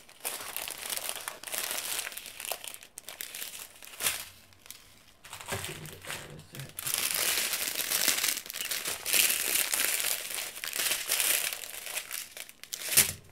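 Small plastic bags of diamond painting drills crinkling and rustling as a strip of them is handled and sorted through by hand, louder and busier in the second half, with one sharp crackle just before the end.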